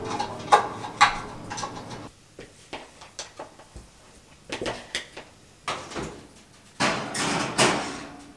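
Kitchen utensil handling: a plastic spatula scraping and knocking as sticky oat mixture is pushed from a plastic bowl into a metal loaf pan, a string of irregular short knocks and taps. Near the end comes a longer scraping rattle as the oven rack slides in.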